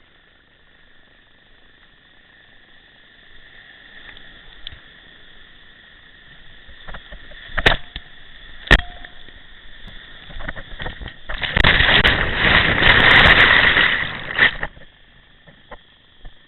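Whitewater rushing past a kayak as it runs a waterfall rapid, building up, with two sharp knocks about a second apart midway. Then comes a loud, dense rush of water for about three seconds before it drops back. A steady high-pitched hum runs underneath.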